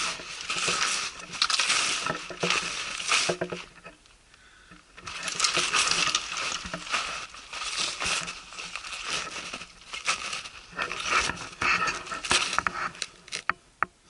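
Footsteps crunching through deep snow in an irregular run, with a pause of about a second around four seconds in.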